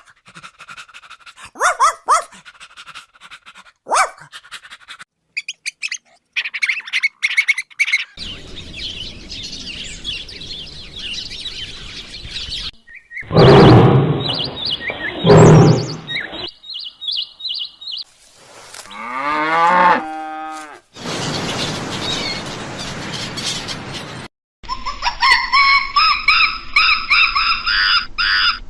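A string of short, abruptly cut clips of different animal calls, among them bird chirps and two loud, deep calls.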